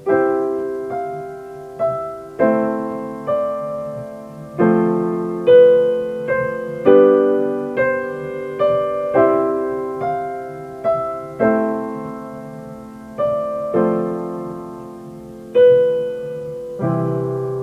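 Solo piano playing a slow instrumental outro: chords struck one after another, each ringing and fading before the next.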